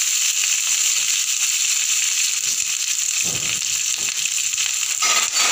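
Slit green chillies frying in hot oil in a pan, a steady high sizzle, with a couple of brief low thuds about three and five seconds in.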